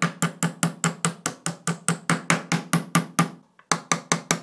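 Small hammer rapidly tapping the trigger-group retaining pin into a Beretta A300 Ultima Patrol shotgun's receiver: quick, even, light taps at about six a second, a short pause about three and a half seconds in, then a few more taps.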